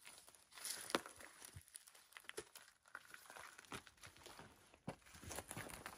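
Faint footsteps crunching on stony, gravelly dirt, with scattered small clicks and crackles.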